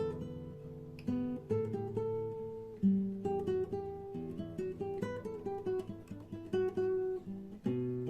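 Acoustic guitar playing a song melody, plucked single notes mixed with chords, each note ringing and fading before the next.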